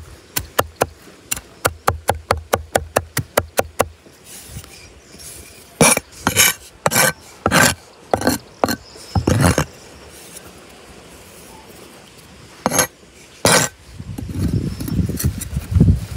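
Cleaver chopping garlic on a wooden board: a fast, even run of strokes, about five a second, for the first four seconds, then slower, scattered chops and scrapes as the blade gathers the minced garlic into a pile. A low rushing noise comes in near the end.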